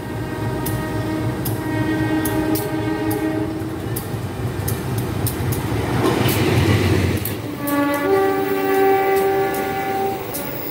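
Passing diesel-electric passenger train with a CC203 locomotive, sounding a long multi-tone horn blast in the first few seconds. About six seconds in, the locomotive's engine rushes past on the next track, and a second multi-tone horn blast sounds as the coaches roll by.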